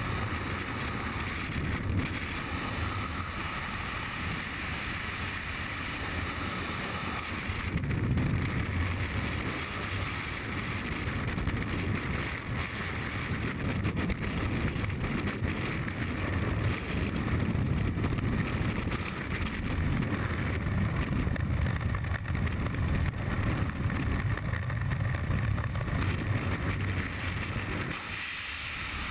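Freefall wind rushing over the camera's microphone, a steady, loud rumbling buffet that goes on without a break.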